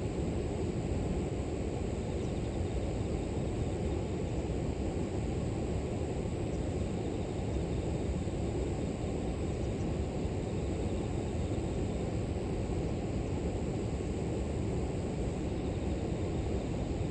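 River water rushing steadily, a low even wash, with a faint steady high-pitched drone of grass insects above it.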